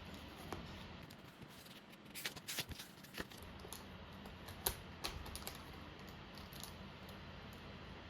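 Light clicks and taps of small objects being handled, a quick cluster a couple of seconds in and one sharper click near the middle, over a faint low hum.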